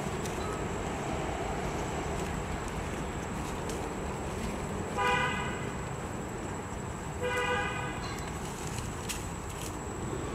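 A horn tooting twice, two short even-pitched toots about two seconds apart, over steady background noise.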